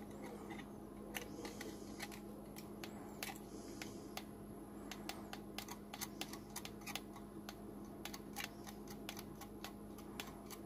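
Light, irregular clicks and taps of ceramic tweezers squeezing and strumming the glowing coils on an RDA build deck, the coils being pulsed and worked to even out hot spots. A faint steady hum runs underneath.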